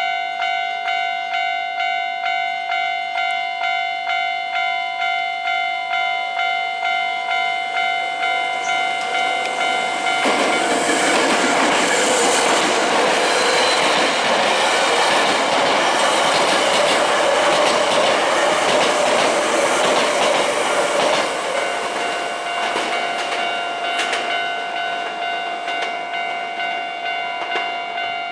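Japanese level-crossing warning bell ringing in an even beat of about one and a half strikes a second. About ten seconds in, a Hankyu electric train passes over the crossing, and its wheel-on-rail clatter and running noise drown the bell for about eleven seconds before the bell comes through again.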